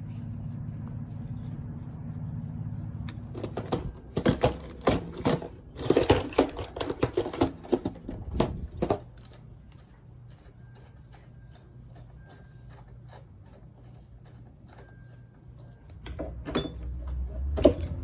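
Hand tools and metal parts clicking and clattering in quick runs during ATV teardown work. The clatter comes in a dense spell from about three and a half to nine seconds in and again near the end, over a low steady hum at the start.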